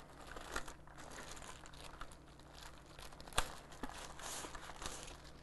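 Wrapping being pulled off a new keyboard: soft crinkling and rustling with scattered small crackles, and one sharper crackle about three and a half seconds in.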